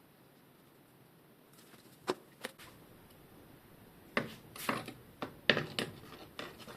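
Bicycle headset parts and tools being handled on a workbench: two light clicks about two seconds in, then a quick run of clicks and knocks from about four seconds in.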